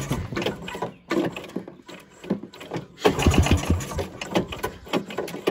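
1987 Ski-Doo Citation 250 snowmobile's two-stroke engine being cranked over in repeated short bursts, about a second each with pauses between, turning over without catching.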